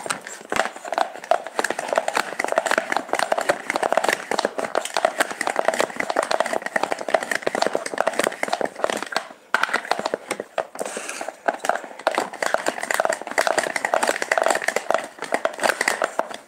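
Plastic hand grater worked in quick strokes: a fast, continuous run of rasping scrapes, with a short break about nine and a half seconds in.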